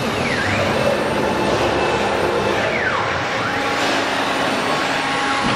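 CNC wood router running, its spindle cutting into a sheet of board, a steady loud machining noise. Several whines dip and rise again in pitch as the machine works, over a few steady tones.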